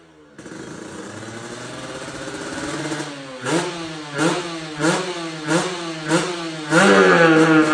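Kawasaki Ninja motorcycle engine through a Win Speed aftermarket exhaust, being revved. The engine note builds, then comes a series of quick throttle blips about every two-thirds of a second, each rising and falling away. Near the end it is held at higher revs.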